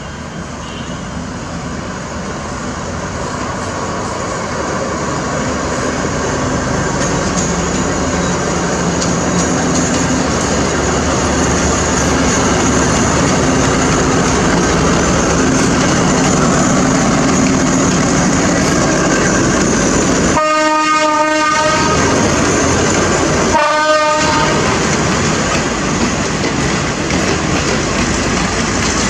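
State Railway of Thailand diesel-hauled passenger train running past, the sound of the engine and the wheels on the rails growing louder as it nears. There are two horn blasts about twenty seconds in: a longer one of about a second and a half, then a shorter one of about a second.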